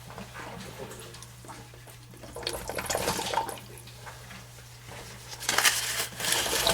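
Water rushing and splashing out of a water heater's opened pipe connections, in two surges, the second near the end, over a steady low hum.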